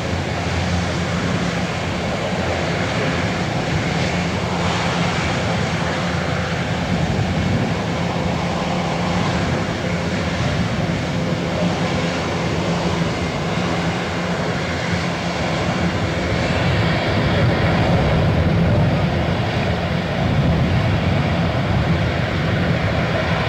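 Airbus A400M's four turboprop engines running at low power as it rolls along the runway after landing, a steady sound that swells somewhat past the middle.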